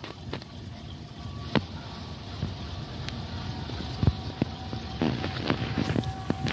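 Footsteps on asphalt and bumps from handling the recording phone, over a low steady rumble; the knocks come closer together in the last second or two.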